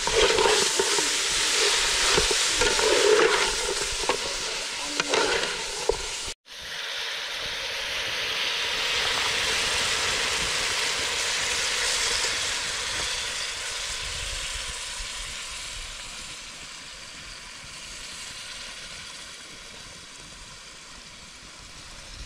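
Food sizzling as it fries in a pan, with stirring and scraping in the first few seconds. After a cut about six seconds in, the sizzling goes on steadily and slowly grows fainter.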